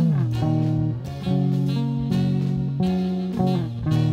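Squier Telecaster electric guitar playing a single-note melody, with sliding pitch changes between notes near the start and again near the end.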